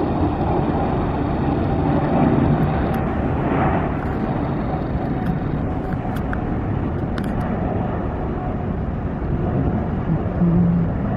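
Jet airliner's engines at climb power just after takeoff, a steady heavy noise that holds at much the same level throughout.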